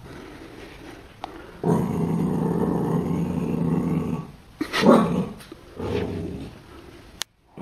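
Corgi puppy growling in a long low growl, then a short, louder bark about five seconds in and a briefer growl after it.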